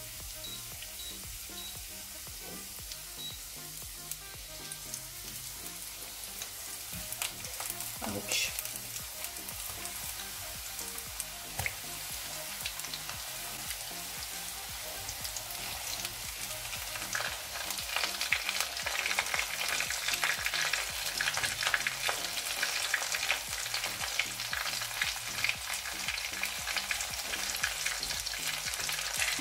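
Breaded chicken strips shallow-frying in hot cooking oil in a nonstick pan, sizzling and crackling, growing louder over the second half as the pan fills.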